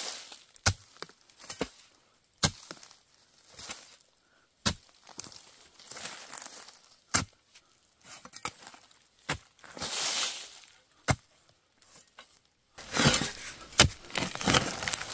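A narrow spade chopping into dry, crumbly earth, with sharp single strikes a second or two apart. Near the end it turns to rapid scraping and soil falling loose.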